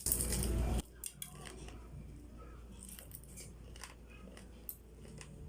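A loud crunch lasting just under a second as a bite is taken into crispy turon's fried spring-roll wrapper, then scattered faint crackles of chewing.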